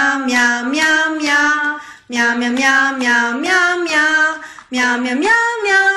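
A high voice singing a light, cutesy song in three phrases of about two seconds each, each stepping up in pitch partway through, with short breaks between them.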